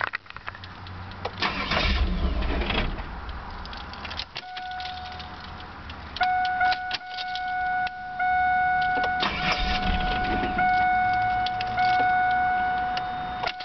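Camaro's 3.8-litre (3800) V6 cranked by the starter twice, about a second and a half each time, without catching: a no-start. From about four seconds in a steady high electronic warning tone sounds, breaking off briefly now and then.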